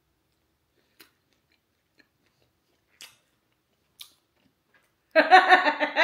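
A woman biting and chewing jerk chicken close to the microphone, with faint short crunches about once a second. Near the end a loud, wordless vocal sound of about a second, a reaction to the taste.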